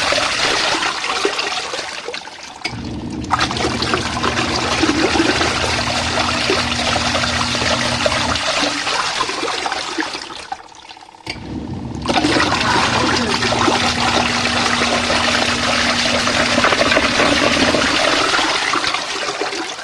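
Portable twin-tub washing machine washing a load in hot water: water sloshing and churning in the wash tub over the low hum of the wash motor. The motor stops twice, the second time almost to silence, and starts again each time.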